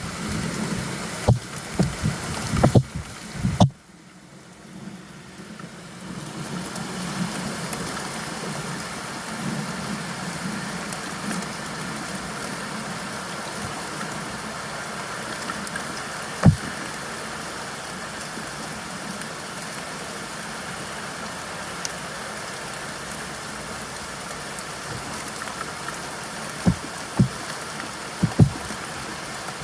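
Steady rainfall hiss, with occasional louder drops striking close by. About four seconds in it drops away suddenly and swells back up over the next couple of seconds.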